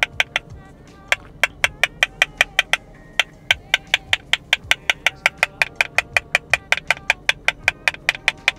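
Background music: a quick, even run of short clicking percussive notes, about five a second, broken by two short pauses near the start.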